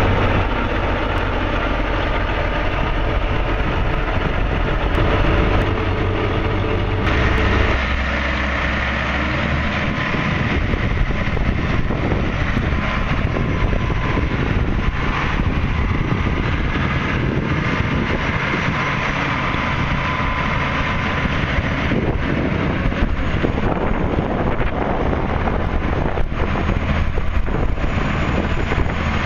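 A 2010 John Deere 9630T track tractor's diesel engine running steadily. About seven seconds in, the sound changes abruptly to the tractor moving on its rubber tracks, noisier and broader.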